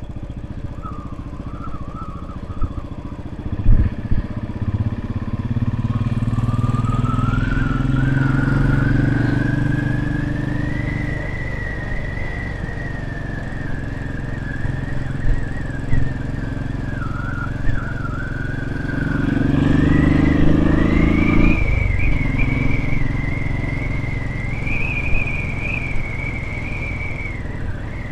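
Royal Enfield Classic 500's single-cylinder engine running under way, swelling louder about six seconds in and again around twenty seconds in. A thin, wavering high whistle runs over it.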